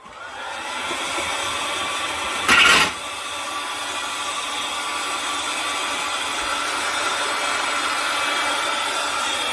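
Hair dryer blowing hot air steadily onto ice frozen inside a refrigerator compartment, a light motor whine over the rush of air, switched on right at the start. About two and a half seconds in there is one short, louder gust of noise.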